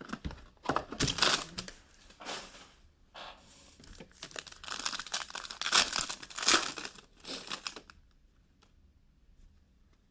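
Plastic wrapping on a trading card box or pack being torn open and crinkled, in irregular crackling bursts that stop about two seconds before the end.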